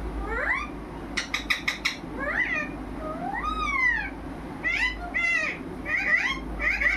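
Pet parrot calling: a string of short rising cries, a quick run of about five sharp clicks between one and two seconds in, and a longer call that rises and falls between three and four seconds in.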